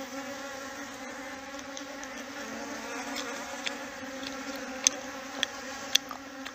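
Honey bees buzzing, a steady droning hum of many wings around a honeycomb. Over it come a few sharp wet mouth clicks, loudest about five and six seconds in, as the honeycomb is chewed.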